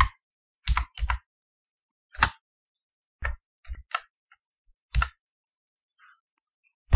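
Computer keyboard keys clicking as text is typed: about nine sharp, irregularly spaced keystrokes, some in quick pairs.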